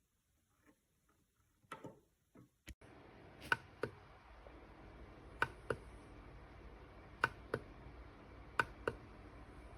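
Sharp clicks in pairs, about every two seconds, over a faint steady hiss that comes in about three seconds in.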